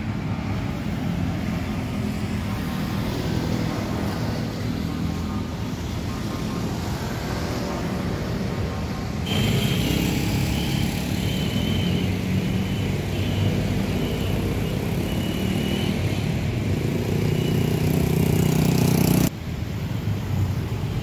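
Street ambience of light road traffic, with motorcycle and car engines running and passing. The sound changes abruptly twice, about nine and nineteen seconds in. A faint, repeatedly broken high tone runs through the middle part.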